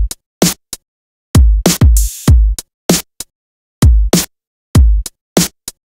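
Programmed drum loop playing back, its snare hits layered with short bursts of white noise that a noise gate, keyed from the snare, cuts off after a brief hold, giving a very gated, bright snare.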